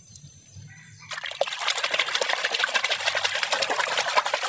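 A hand splashing and churning muddy water in a basin: a busy, unbroken run of splashes that starts about a second in.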